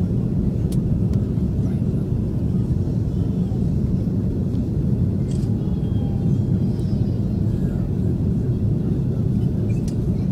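Steady low rumble of an airliner's engines and rushing air, heard inside the passenger cabin during the final descent to land.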